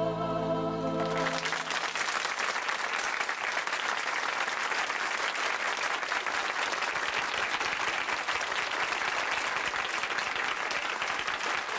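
A choir's final held chord ends about a second in, and an audience breaks into steady applause that carries on.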